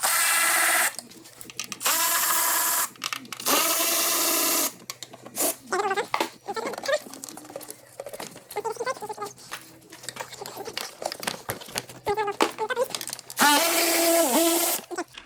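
A power drill/driver runs in four bursts of about a second each, with a steady whine, undoing the bolts of an ATV's CVT drive-belt cover. The last burst winds down in pitch at the end. Softer irregular knocks come from handling in the long gap between the bursts.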